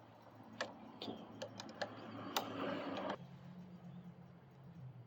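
Light metal clicks and a short rasping stretch of a hand tool tightening a brake-hose banjo bolt on a minibike's hydraulic brake master cylinder, the clicks scattered over the first three seconds.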